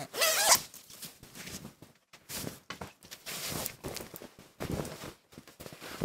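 Pullover being pulled on: a series of fabric rustles and swishes with short pauses between, the loudest right at the start.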